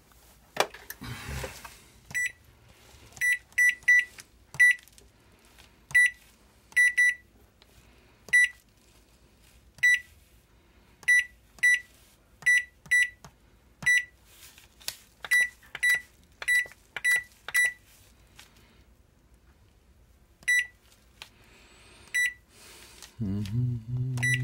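Microwave oven's replacement LCD touchscreen control panel beeping at each touch of a button: about two dozen short, high single beeps, irregularly spaced and some in quick pairs, as its menus are tested. A brief rustle of handling about a second in.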